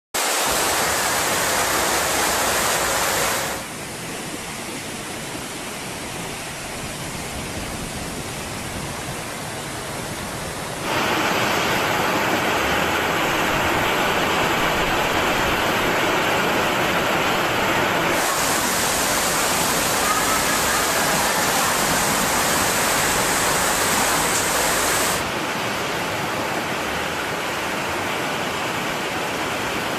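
Rushing floodwater: a steady loud roar of noise that changes abruptly in tone and loudness several times as the footage cuts between shots.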